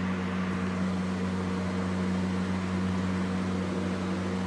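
Steady low mechanical hum at an unchanging pitch, with a faint hiss over it.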